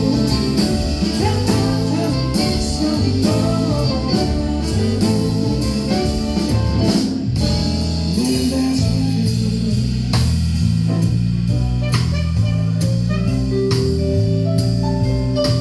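A live jazz band playing, with drum kit strokes over a bass line and held melody notes.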